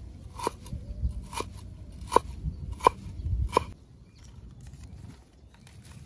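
Heavy cleaver chopping root on a wooden cutting board: five sharp knocks of the blade on the wood, about one every 0.7 seconds, each with a short ring. The chopping stops a little under four seconds in.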